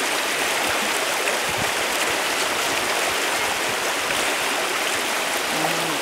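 Steady, even rushing noise of running water.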